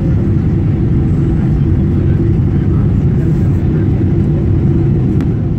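Steady, loud cabin noise of a jet airliner in flight: engine and airflow noise heard from a window seat near the wing.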